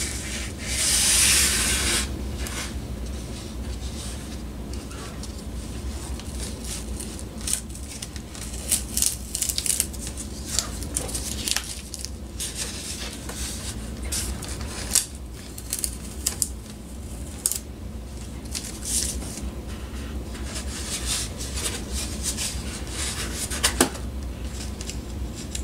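Blue painter's tape being peeled off a foam seaplane float: one longer rip about a second in, then a string of short ripping and crackling pulls.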